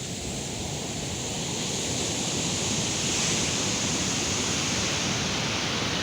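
Ocean surf at high tide in strong wind: a steady rush of breaking and washing waves that swells over the first few seconds, then holds.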